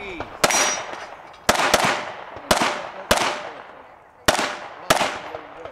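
Glock 35 pistol in .40 S&W fired in a quick, uneven string of about seven shots, each sharp crack followed by a short ringing tail.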